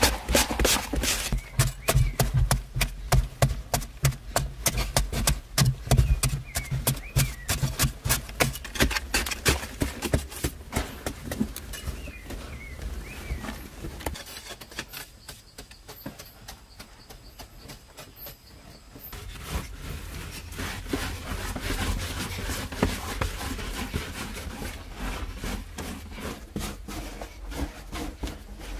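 Rapid repeated knocking of hand tools at work, several strikes a second, louder in the first half, dropping away for a few seconds in the middle, then resuming more softly.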